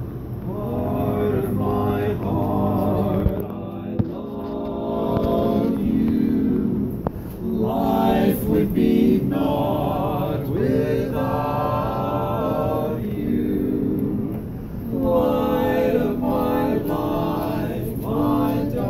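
Men's barbershop quartet singing a cappella in close harmony, phrase after phrase.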